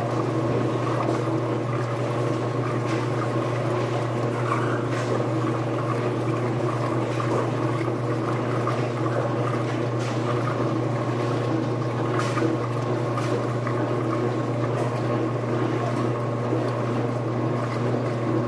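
Steady hum of laundry machines running, with a few faint rustles and knocks as clothes are shifted around inside a machine to even out the load.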